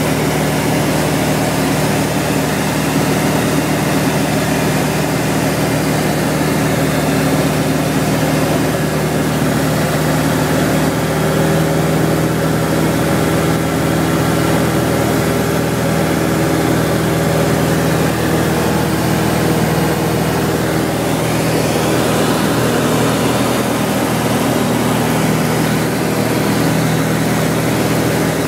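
Robin DR400 light aircraft's 108 hp piston engine and propeller running steadily in flight, heard from inside the cabin; the engine note shifts slightly about three-quarters of the way through.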